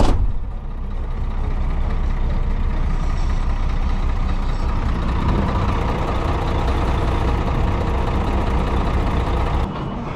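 Flatbed tow truck's diesel engine idling with a steady low rumble, opening with a short sharp burst of noise. Near the end the sound drops away suddenly.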